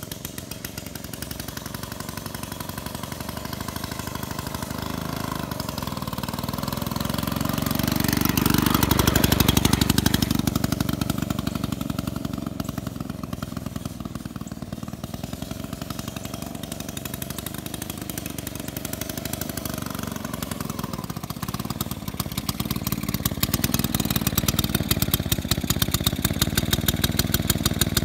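Single-cylinder two-stroke engine of a 1921 Cleveland lightweight motorcycle running on the road with a fast, even popping exhaust. It grows loud as the bike passes close about nine seconds in, fades as it rides away, and grows louder again as it comes back.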